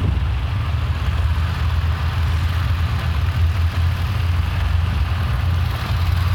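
Engines of a column of tracked armoured infantry fighting vehicles running at low speed as they drive past, a steady low rumble.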